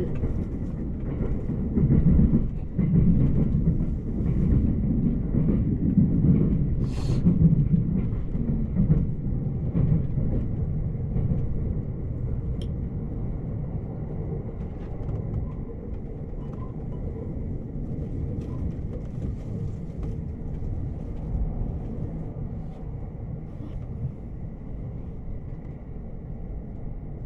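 Commuter electric train running, heard from inside the passenger car: a continuous low rumble of wheels and track, heavier and more uneven for the first ten seconds or so, then settling to a steadier, quieter run. A brief hiss sounds about seven seconds in.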